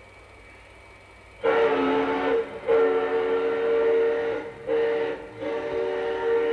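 A train whistle sounds a chord of several notes, starting about a second and a half in. It is blown as two long blasts, a short one, then a long one: the long-long-short-long grade-crossing signal.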